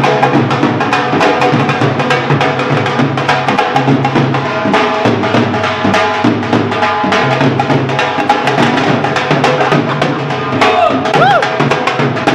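Two dhol drums, double-headed barrel drums, beaten with sticks in a fast, driving rhythm of rapid strokes over a deep booming bass head.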